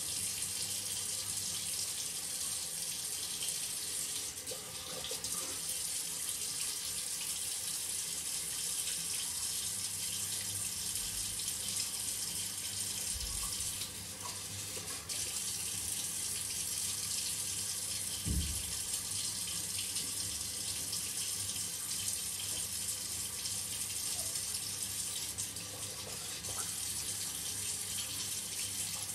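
Shower running, a steady hiss of falling water, briefly muffled a little before the middle.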